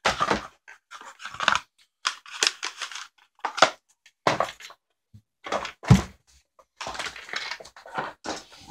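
Irregular rustling and scraping from things being handled close to the microphone, in short bursts with pauses between them. There is a dull thump about six seconds in.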